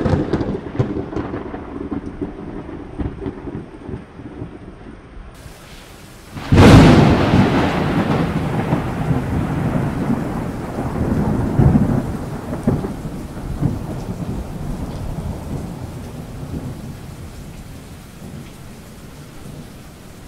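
Thunder over steady rain: a rumble dies away at the start, then about six seconds in a sudden, loud thunderclap breaks and rolls on in several swells before slowly fading.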